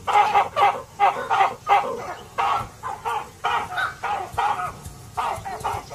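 A troop of baboons giving a rapid, overlapping run of harsh alarm barks and screams, about three calls a second: the troop mobbing a leopard.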